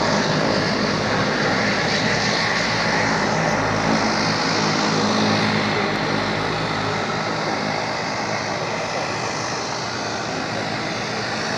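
De Havilland Canada Dash 8 Q300 turboprop taxiing on a single Pratt & Whitney Canada PW123 engine, the other shut down to save fuel: a steady propeller and engine drone, easing slightly in the second half.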